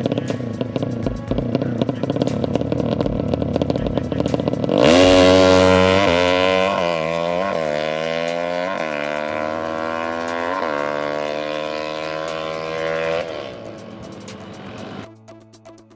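Drag-racing motorcycle with an open exhaust running at a rough, uneven idle. About five seconds in it is revved hard and launches with a sudden loud blare that rises sharply in pitch. The note then falls and fades as the bike rides off, with a few short throttle blips along the way. Music comes in near the end.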